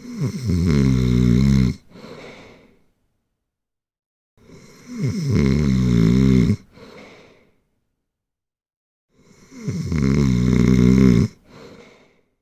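Rhythmic snoring: three loud, rasping snores about four and a half seconds apart. Each stops sharply and is followed by a shorter, softer second sound.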